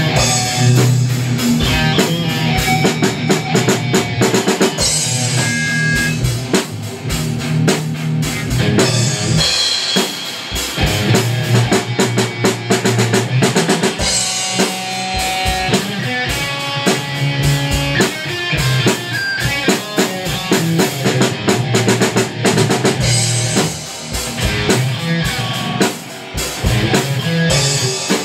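A live rock band playing an instrumental: a full drum kit keeping a steady, busy beat with bass drum and cymbals under electric guitars.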